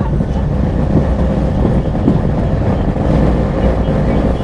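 Loud, steady low rumble of the ghost-train ride carriage's journey, with a faint steady hum over it.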